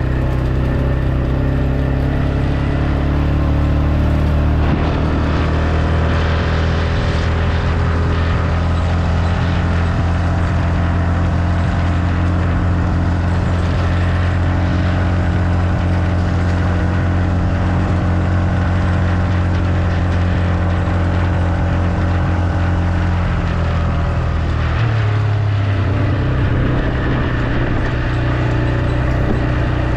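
Vehicle engine and road noise while driving at a steady speed. The engine note shifts about 24 seconds in, then settles again.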